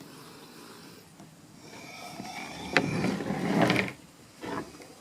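Small parts of a string trimmer's recoil pull-start assembly being handled and fitted together: a few sharp clicks and rattles, most of them in the middle.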